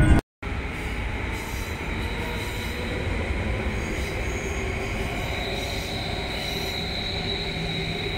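S-Bahn train running on elevated track, heard from inside: a steady rumble, with a high wheel squeal coming in about halfway through as it runs along the station platform.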